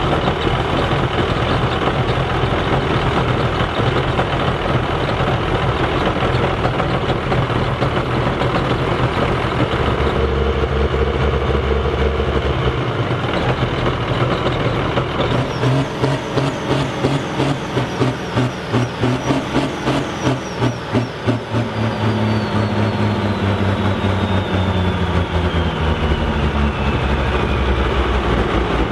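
Ford TW-25 tractor's six-cylinder turbo diesel running loudly, its sound pulsing for a few seconds midway and then climbing steadily in pitch as the revs rise toward the end.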